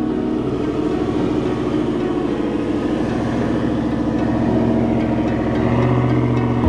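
Lifted Ford F-150's 5.0 V8 engine pulling at low revs as the truck crawls up a steep, rutted dirt climb. The engine note builds slightly near the end.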